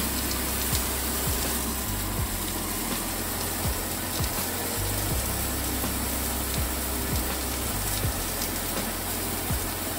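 Rump steak searing in a hot oiled frying pan, a steady sizzle without a break. The sizzle is the sign that the pan is hot enough for searing. Background music plays under it.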